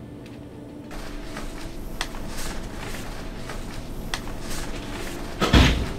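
Low, steady room hum with faint scattered light clicks, then one loud, short thud about five and a half seconds in.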